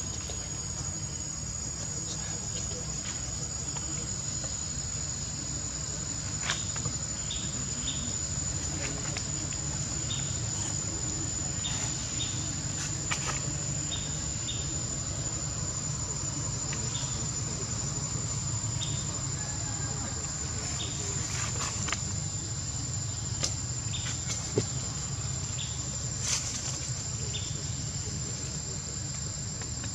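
Insects calling outdoors in an unbroken, high-pitched drone on one steady note, with a low steady rumble beneath and scattered faint ticks.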